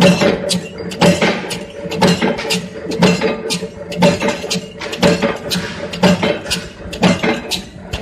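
Steel strip packing buckle making machine running, with a regular stamping stroke about once a second and lighter metallic clicks in between, over a steady motor hum.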